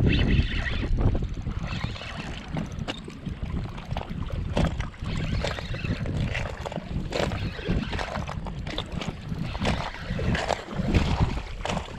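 Wind buffeting the microphone while a hooked speckled trout is reeled in on a spinning rod and reel, with scattered clicks and knocks throughout.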